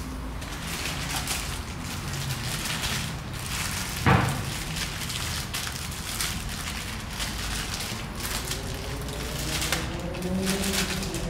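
Hand work on a motorcycle in its steel shipping crate: irregular clicks, rattles and rustles of parts being handled, with one sharp knock about four seconds in.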